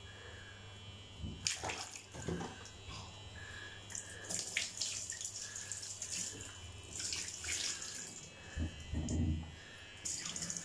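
Water poured from a cup and splashing in a bathtub while a hairless cat is washed by hand, in irregular bursts that start about a second and a half in.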